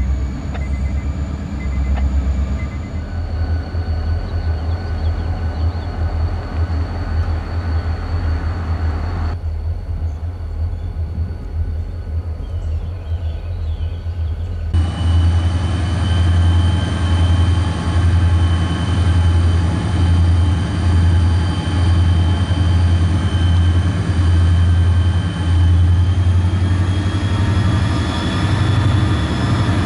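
Diesel-electric road-switcher locomotive running close by: a deep, pulsing engine throb with a steady high whine over it, growing louder about halfway through.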